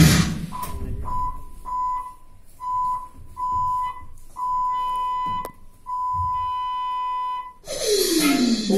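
A run of electronic beeps at one high pitch in the dance's playback track: short beeps at uneven spacing, then longer ones, ending in one long held tone, with a single click about five and a half seconds in. Near the end the electronic music comes back in with a falling swoop.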